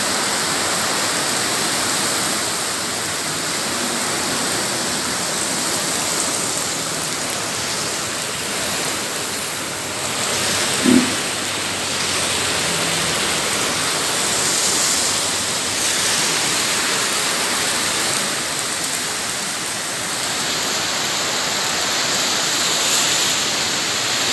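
Heavy rain pouring down on a paved street and sidewalk, a steady dense hiss. About eleven seconds in, a brief low tone sounds over it, the loudest moment.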